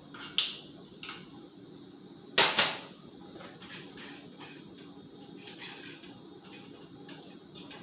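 Metal kitchen utensils clinking and knocking against cookware, a scatter of sharp taps. The loudest are two knocks in quick succession about two and a half seconds in, followed by lighter ticks.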